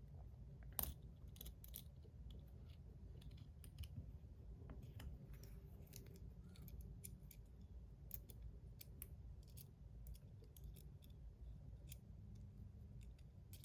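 Faint, irregular small metal clicks and taps from a fidget spinner's parts and bearing being handled while the bearing is fitted, with one sharper click about a second in.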